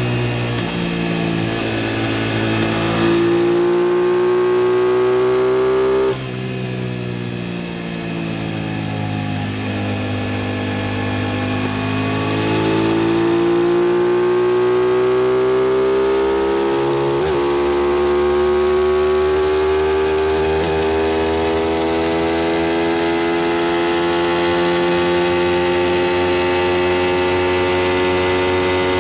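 Aprilia RS660's parallel-twin engine pulling hard under acceleration, its pitch climbing through the gears. There is an upshift with a sudden drop in pitch about six seconds in. In the second half it holds a long, steady high note that rises slowly as the bike gains speed in a high gear.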